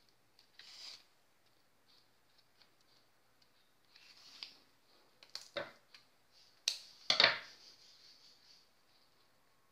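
Ribbon rustling and sewing thread drawn through as a hand-sewn satin and grosgrain bow is knotted off at the back: a few short scraping rustles, the loudest about seven seconds in.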